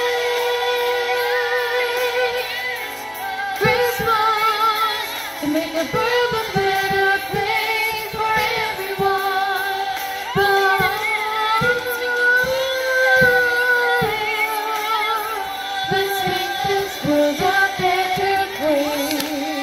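Female voice singing the soprano line of a choral arrangement, with vibrato, over an instrumental accompaniment of short, repeated low notes.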